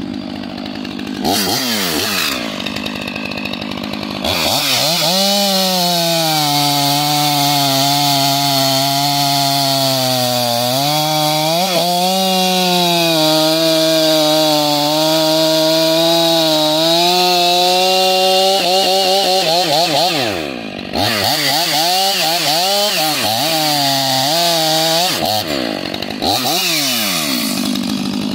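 Stihl MS 500i fuel-injected two-stroke chainsaw with a 25-inch bar and semi-skip chain cutting wood. The engine blips up and down at first, then settles into a long steady, lower-pitched run under load through the middle, and goes back to revving up and down near the end.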